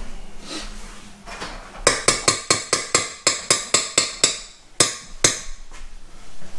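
Sharp knocks at a metal mixing bowl: a quick, even run of about a dozen, some four or five a second, then two more after a short pause.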